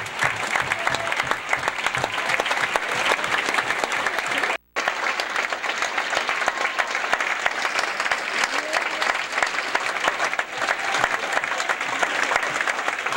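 Large theatre audience applauding steadily, a dense wash of many hands clapping for performers taking their curtain call. The applause cuts out for a split second about four and a half seconds in, then carries on.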